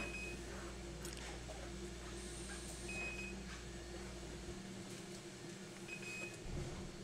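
Dialysis machine beeping: a short high beep about every three seconds, three times, over a steady low machine hum, with a few faint clicks.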